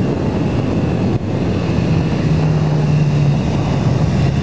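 BMW S1000RR superbike's inline-four engine running at speed, heard from an onboard camera under heavy wind rush. The engine note holds steady, with a brief dip in loudness about a second in.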